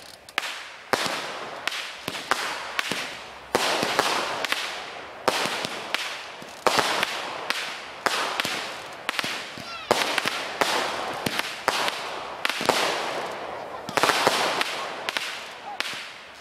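Consumer aerial fireworks launched from the ground, firing a rapid string of sharp bangs, roughly one to two a second, each shot or burst trailing off in a fading hiss.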